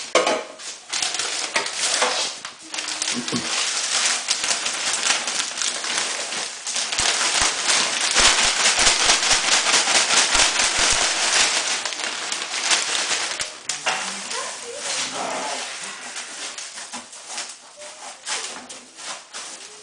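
Dry hay rustling and crackling in many quick, dense clicks, strongest in the middle and fading over the last several seconds.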